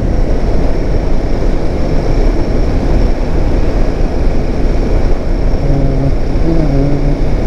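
Royal Enfield Himalayan 450 single-cylinder motorcycle running on the move, with steady wind rush on the microphone covering much of the engine.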